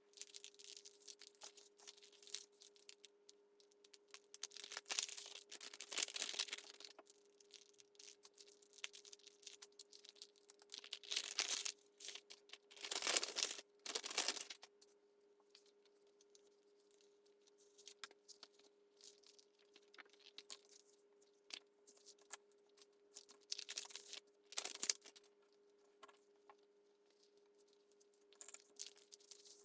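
Paper and packaging being handled: rustling and tearing in irregular bursts, the loudest around five, eleven, thirteen and twenty-four seconds in, over a faint steady hum.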